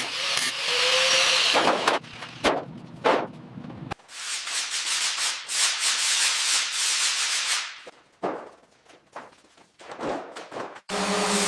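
Sanding: a steady abrasive rasp in two long stretches, broken by a few sharp knocks and clicks in between.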